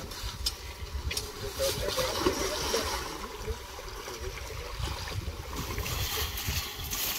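Water sloshing and swirling in a freshly cut hole in lake ice as blocks of ice are pushed down into it, with a few short knocks early on.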